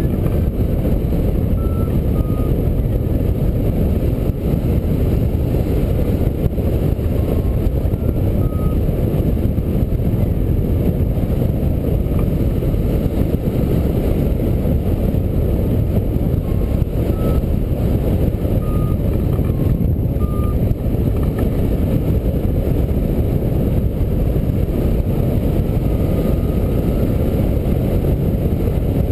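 Steady rushing wind on the microphone of a camera mounted on a hang glider in flight, with faint short beeps here and there from a flight variometer.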